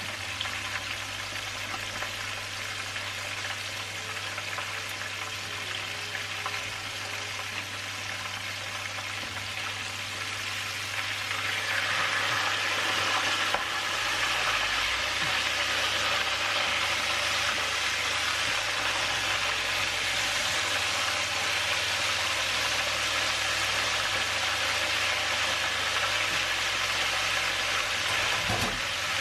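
Two whole snappers frying in hot vegetable oil in a wide pan, the oil sizzling and bubbling as a steady hiss that grows louder about eleven seconds in and stays up.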